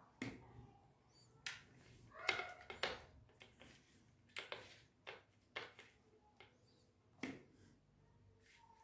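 Faint, irregular short squishes and light taps as bare fingers work a thick spice paste into fish steaks on a steel plate.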